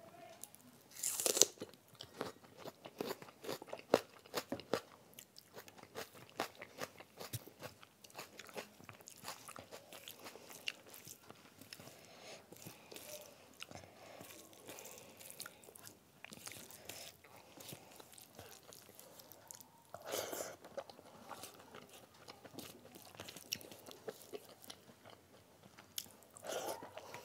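Close-up chewing and biting of food eaten by hand, with crunchy bites and wet mouth clicks throughout. There are louder crunches about a second in, around twenty seconds in and near the end.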